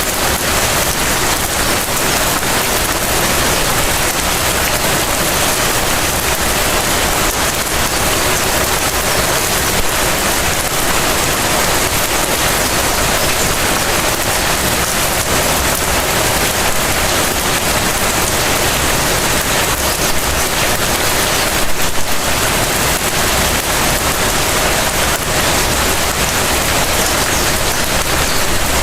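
Light rain falling steadily, a dense even patter of drops. There is one louder tap about twenty-two seconds in.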